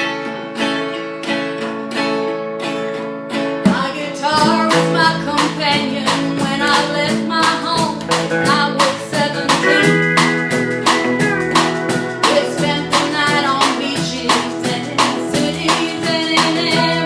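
A band playing live: a guitar strums alone for the first few seconds, then bass and drums come in and the full band plays on with a steady beat, a steel guitar gliding above it.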